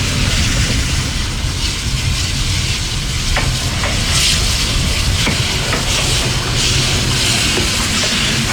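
Steam locomotive hissing steam, with swells in the hiss over a steady low rumble and a few sharp metallic clicks.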